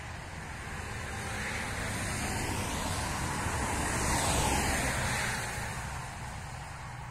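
A car passing along a country road: tyre and engine noise swelling over a few seconds, loudest about four seconds in, then dropping in pitch and fading away.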